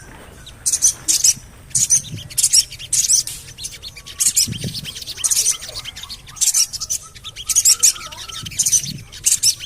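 Sogon bird's high-pitched 'cuit-cuit-cuit' calls: short runs of rapid chirps, repeated about every half second to a second.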